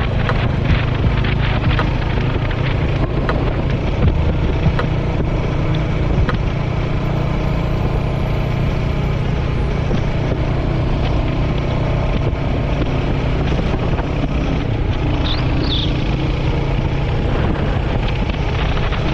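Royal Enfield Hunter 350's single-cylinder engine running steadily at cruising speed, with wind rushing over the microphone.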